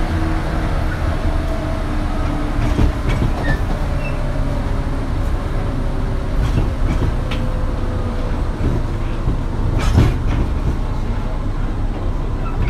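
JR West 117 series electric train running, its MT54D traction motors whining in several steady tones that sink slowly in pitch as it slows. Over a low rumble, the wheels click over rail joints a few times.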